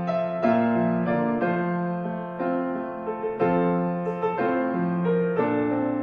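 Solo piano playing a slow hymn tune in full block chords, a new chord struck about once a second and held.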